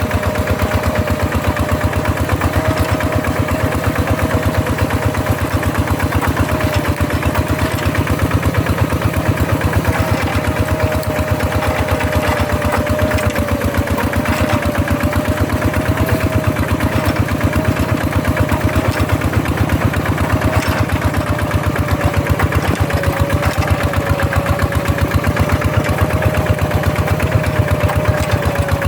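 Two-wheel hand tractor's single-cylinder diesel engine running steadily with a fast, even chugging beat and a thin steady whine over it.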